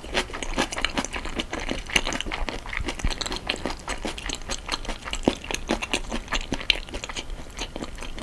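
Close-miked chewing of a mouthful of marinated raw shrimp and rice: wet mouth sounds with many small, irregular clicks.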